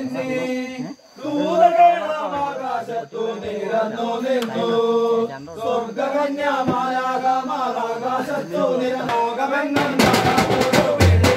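Voices singing a Christmas carol, the tune held in long, gliding notes. About ten seconds in, drums and percussion come in with a fast, dense beat.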